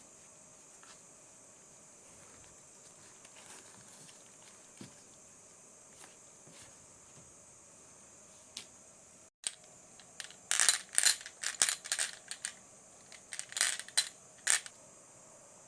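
Marbles clattering along a marble run: faint, scattered ticks for the first several seconds, then, after a brief silent cut, about four seconds of quick clusters of sharp clicks and clacks as marbles knock along the track and into one another.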